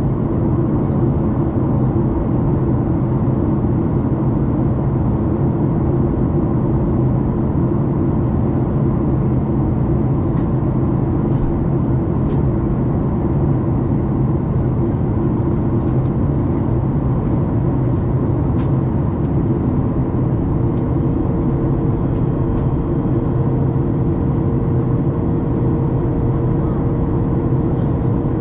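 Steady cabin noise inside a Boeing 737 MAX 8 on descent, from its CFM LEAP-1B turbofan and the rush of air past the fuselage, heard from a seat ahead of the wing. A faint steady tone joins the hum about two-thirds of the way through.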